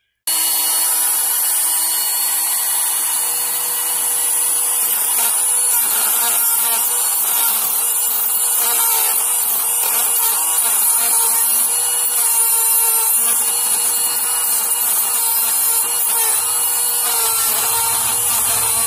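Dremel 8100 cordless rotary tool running steadily at high speed, its bit grinding into metal: a steady high whine over a grinding hiss.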